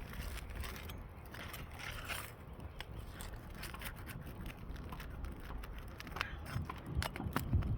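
Steel roofing tools scraping and clicking against asphalt shingles as nails are pried out from under them. The irregular scrapes and taps come thicker near the end.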